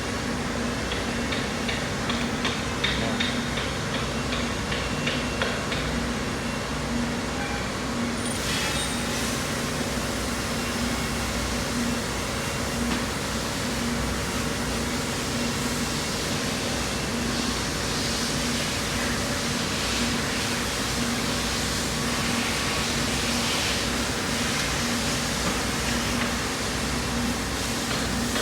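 A steady mechanical hum and low rumble, with light clicks in the first few seconds and a broader hiss joining in about eight seconds in.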